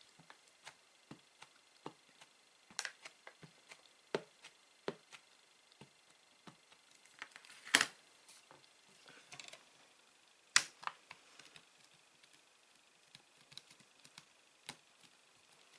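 Light taps and clicks from inking clear stamps with an ink pad and handling a plastic stamp press, with two sharper clacks about eight and ten and a half seconds in.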